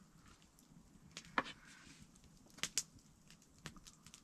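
About five faint, sharp clicks and taps spread over a few seconds, over a quiet background.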